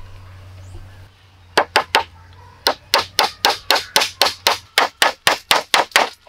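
A hammer driving a nail into a wooden log: three quick blows, then a steady run of about fifteen blows at roughly four a second.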